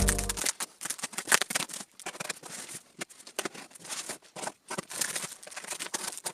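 Irregular light clicks, knocks and rustles, like small objects being handled, with the tail of background music fading out in the first half second.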